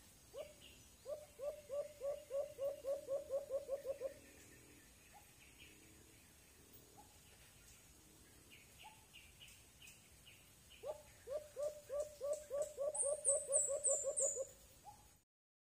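White-eared brown dove calling: two long runs of quick, low hooting notes, about five a second, the second run starting about eleven seconds in. A few short high-pitched chirps sound over the end of the second run, and then the sound cuts off abruptly.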